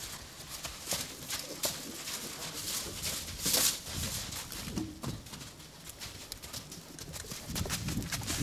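Horses' hooves knocking and clopping irregularly on the ground as the horses move about, with a brief louder rush of noise about three and a half seconds in.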